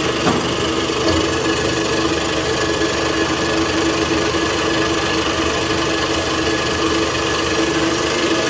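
A machine running steadily, with a constant hum and a fainter high whine over a dense drone.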